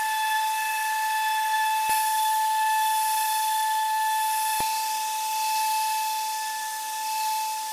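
Festool orbital sander in an edge-sanding guide running on a wood edge with its dust extractor drawing through the hose: a steady high-pitched motor whine over a constant hiss.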